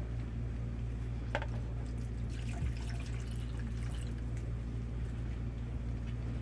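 Labrador retriever puppies lapping milk from a bowl: small wet, dripping lapping sounds over a steady low hum, with one short click about a second and a half in.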